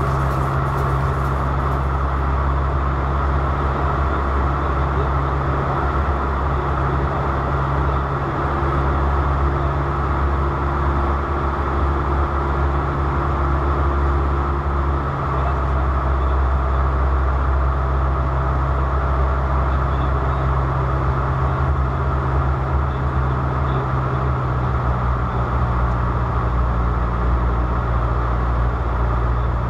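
Steady drone of an aircraft in flight heard from inside the cabin: a constant low hum with a rushing noise over it.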